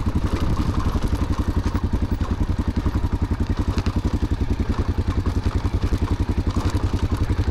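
Single-cylinder motorcycle engine idling steadily, with an even beat of about ten pulses a second.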